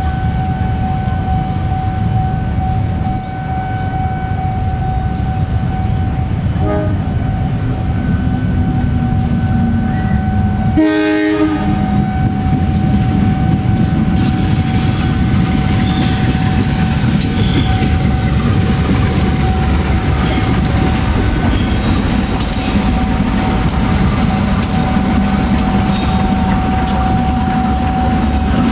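Diesel locomotive engine rumbling as it hauls a passenger train past, with a short horn blast about eleven seconds in. In the second half the wheels click over rail joints as the coaches roll by.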